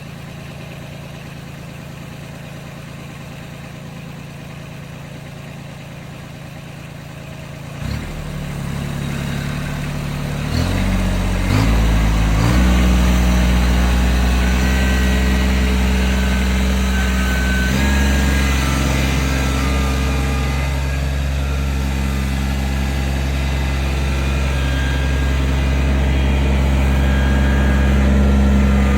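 An engine running steadily, its speed stepping up in a few stages about a third of the way in, then holding at a higher, steady speed.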